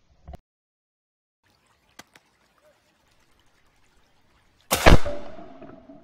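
A single shotgun shot, sudden and very loud, about three-quarters of the way through, ringing on and fading away over about a second. A couple of faint clicks come a second or two before it.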